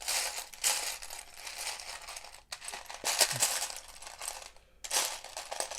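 Loose plastic Lego Technic pieces rattling and clattering as a hand sifts through them, in several bursts with short pauses.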